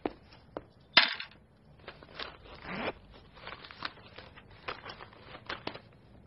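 Handbag being handled: a sharp knock about a second in, then rustling as the bag is set down on a chair and searched, and a run of light clicks as a mobile phone is taken out.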